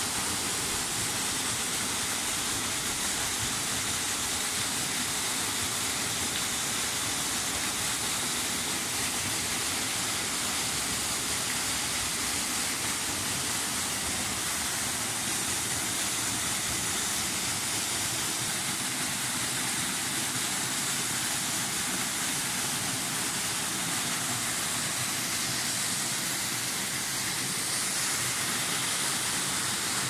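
Small waterfall splashing into a shallow pool: a steady, even rush of falling water.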